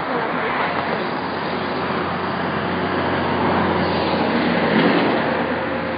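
Road traffic on a busy multi-lane road: the steady noise of cars passing, swelling about four to five seconds in as a vehicle goes by close.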